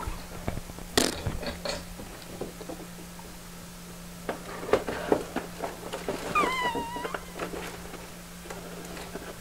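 A cat gives one short meow, falling in pitch, about six and a half seconds in. Around it are scattered clicks and knocks and a sharp noisy burst about a second in, over a steady low hum.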